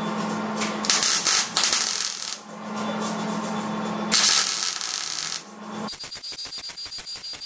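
MIG welding a fillet seam on sheet steel with a Millermatic 211 welder: the arc crackles in three short bursts of about a second each over a steady hum. Near the end it gives way to a quieter, even, rapid ticking.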